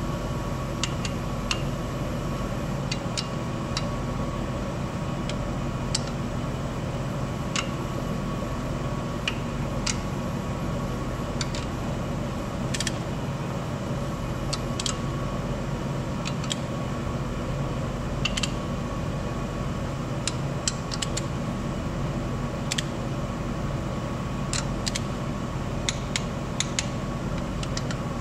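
Ratcheting torque wrench clicking in short irregular runs as the blower bolts are tightened to 24 foot-pounds, over a steady mechanical hum.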